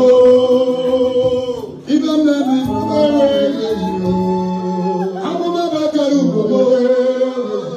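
Singing with music: long held vocal notes that glide from pitch to pitch, with a short break in the sound just under two seconds in.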